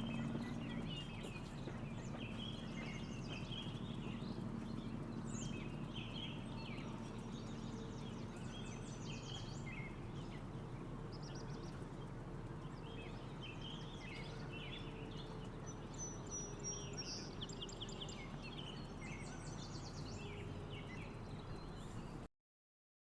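Outdoor field sound of many birds giving short, high chirps and calls throughout, over a steady background rush.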